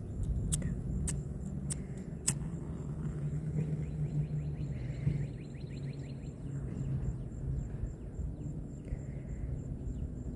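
A hand-held lighter struck four times in the first couple of seconds without catching, sharp clicks, over a steady low outdoor rumble.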